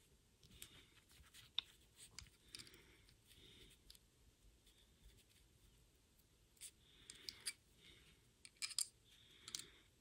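Needle-nose pliers bending the small metal tabs of a toggle switch's housing back inward: faint metallic clicks and short scrapes of the pliers' jaws on the switch's metal frame, coming in irregular clusters.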